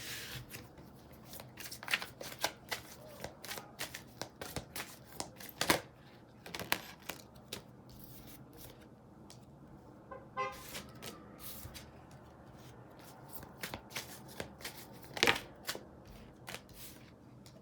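A tarot deck being shuffled by hand: irregular card slaps and snaps, with a short burst of rapid ticking about ten seconds in.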